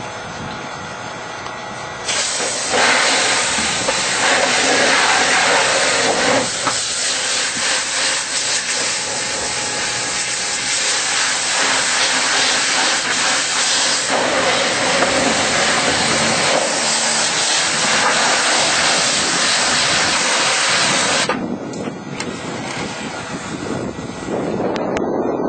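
Loud, steady rushing of air, a hiss with no clear pitch. It starts abruptly about two seconds in and cuts off abruptly a few seconds before the end.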